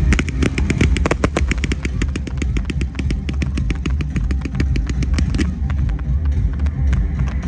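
Fireworks barrage: a rapid run of shots firing comets into the sky, about five to eight sharp cracks a second, over a steady low rumble.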